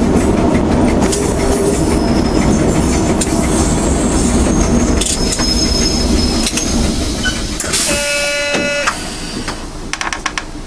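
Passenger train running over the rails, heard from the cab: a steady rumble with clicks of the wheels over rail joints and a high squeal of the wheels on the curve. About eight seconds in a short high-pitched tone sounds and the running noise drops as the train slows toward the platform.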